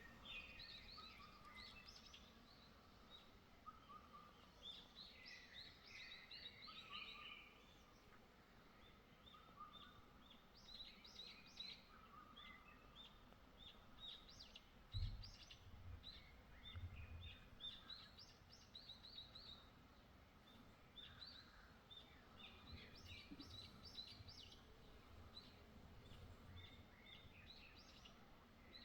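Faint birdsong: several small birds chirping and twittering in quick, overlapping phrases. A few low thumps come about halfway through.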